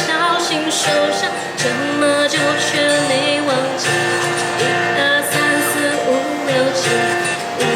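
Pop song playing, a melodic singing voice over instrumental backing.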